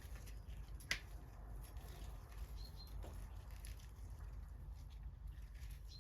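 Quiet ambience with a steady low rumble, one sharp click about a second in, and a few short faint high chirps a little before the middle.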